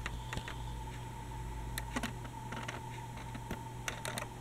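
Scattered light plastic clicks and taps from a Dickie Toys City Liner toy tram as its door slides shut, over a steady electrical hum with a thin whine.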